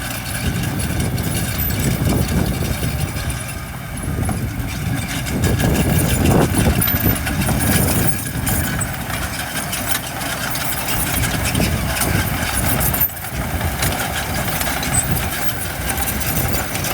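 Diesel engine of heavy earthmoving machinery running, growing louder for a few seconds near the middle.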